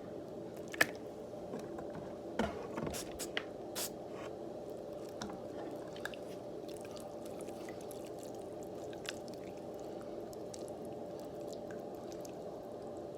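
Slime being squeezed and kneaded by hand: wet squishing with scattered sharp clicks and pops, the loudest about a second in and a cluster from about two to four seconds in, over a steady low hum.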